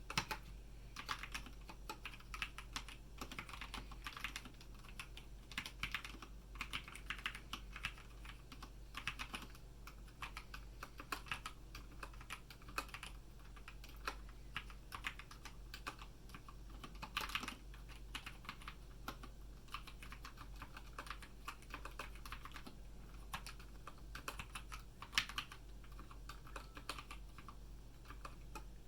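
Typing on a HATOR Rockfall EVO TKL Optical keyboard with stock Kailh optical black switches: a steady run of irregular key clicks, with a few louder strokes now and then. A steady low hum lies underneath.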